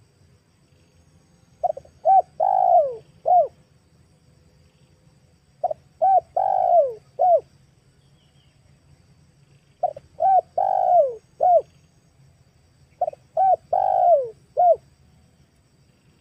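Female spotted dove cooing: four phrases about four seconds apart, each two short coos, a longer coo that slides down in pitch, and a final short coo. It is the female's call, used to lure male spotted doves.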